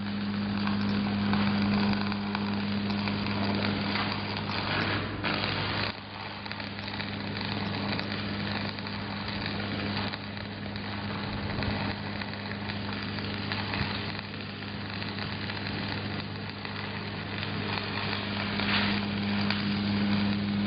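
Shielded metal arc (stick) welding arc crackling steadily like frying, over a steady low electrical hum.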